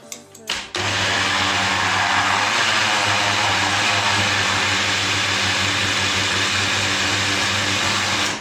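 A few clicks as the grinder's lid is pressed on, then a small electric grinder runs steadily for about seven and a half seconds, grinding roasted peanuts into peanut butter, and stops at the end.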